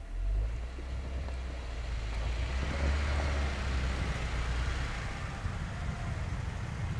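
Jeep Wrangler driving, a steady low engine rumble with road noise that grows louder about halfway through.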